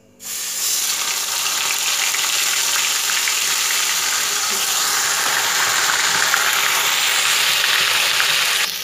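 Onion purée poured into hot oil with cumin seeds in a wok: a loud, steady sizzle that starts suddenly as the wet purée hits the oil, with small crackles through it.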